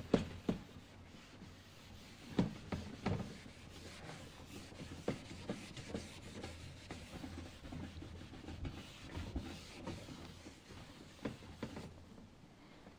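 A chalkboard duster wiping a chalkboard clean: faint, irregular rubbing strokes with scattered light knocks.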